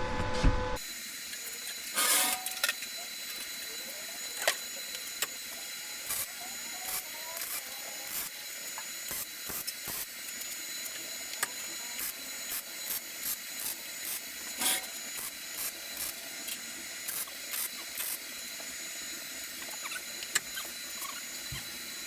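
MIG welding: a steady hissing sizzle with irregular sharp crackles and pops, as short welds are run on the steel frame of the cart.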